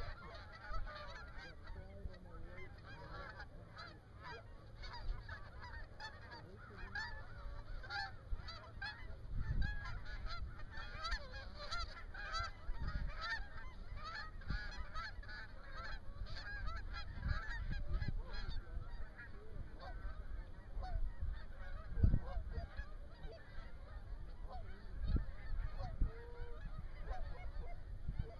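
Flocks of Canada geese honking overhead in many overlapping calls, busiest in the middle and thinning toward the end, over a low wind rumble on the microphone.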